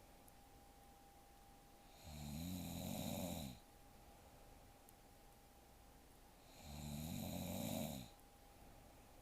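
A sleeping young woman snoring: two snores, each about a second and a half long and roughly four and a half seconds apart, with quiet breathing gaps between them.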